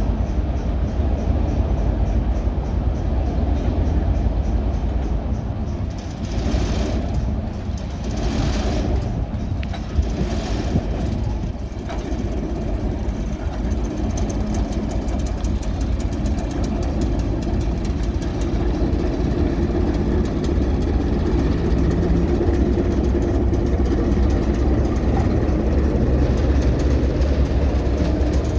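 Diesel engines of a BR Class 09 shunter and Class 33 locomotive 33002 running with a steady low drone. A few bursts of hissing come between about six and twelve seconds in, and a steady hum rises over the engine noise in the second half.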